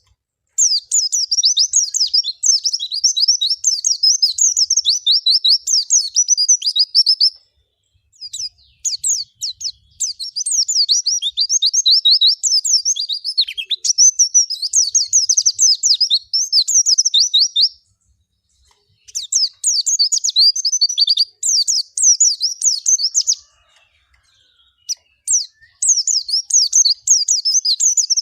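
White-eye (pleci, Zosterops) singing: long runs of fast, high twittering notes, each run lasting several seconds, with short pauses between them, four runs in all.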